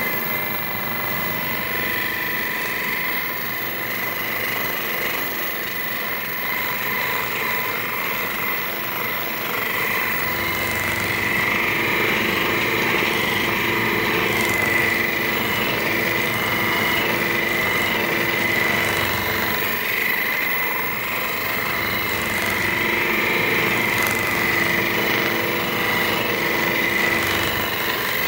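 Handheld percussion massage gun running steadily with a high motor buzz. It is pressed against the patient's muscles, and its level shifts a little as it is moved.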